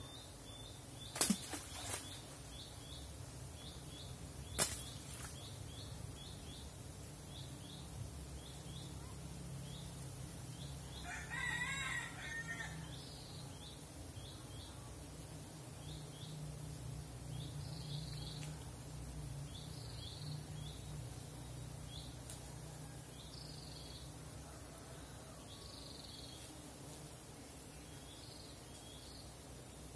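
A rooster crows once, about eleven seconds in, over a running series of short high chirps, about two a second, and a steady low hum. Two sharp knocks, the loudest sounds, come in the first five seconds.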